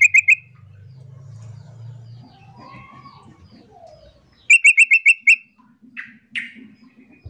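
Yellow-vented bulbul (trucukan) giving quick chattering runs of call notes: a short run of about five notes right at the start, a second run of about seven just past halfway, then two single notes near the end. Faint chirps and a low hum lie underneath.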